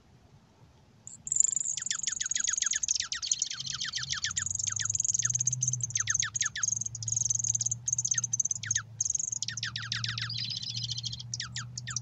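Dark-eyed juncos twittering: a quick, irregular run of high chirps, each falling steeply in pitch, over a thin high steady note. It starts about a second in and goes on without a break, with a faint low hum underneath.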